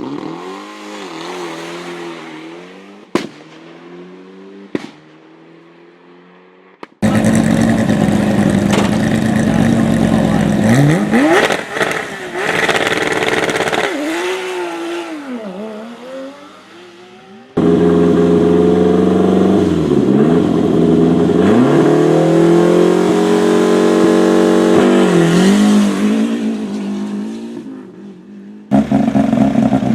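Rally car engines revving hard and accelerating away, pitch climbing through the gears and dropping between shifts, in several clips joined by sudden cuts. Early on a car pulls away into the distance with two sharp bangs, typical of anti-lag.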